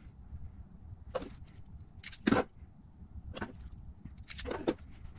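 Hand tools clicking and clacking as a red wire ferrule is fitted onto an 18-gauge wire and squeezed in a ferrule crimping tool: several short, sharp clicks spread out, the loudest a little over two seconds in.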